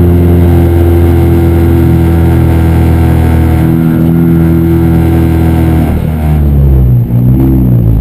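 Touring race car's engine running loud and steady at low speed, heard onboard. Near the end the pitch drops and wavers as the car slows.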